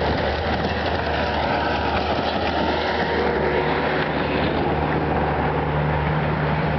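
A vehicle engine running steadily, heard as a low hum inside a broad rushing noise. A second, slightly higher steady tone joins about halfway through.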